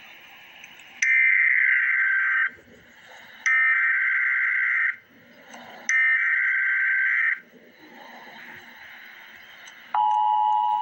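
Emergency Alert System SAME header: three identical bursts of digital data tones, each about a second and a half long with about a second between them. Near the end the EAS two-tone attention signal starts, a steady tone.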